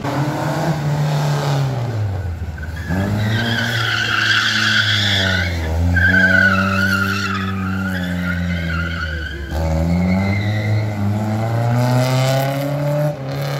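Classic rear-wheel-drive Lada sedan drifting: its engine revs rise and fall several times while the tyres squeal, the squeal loudest in the middle.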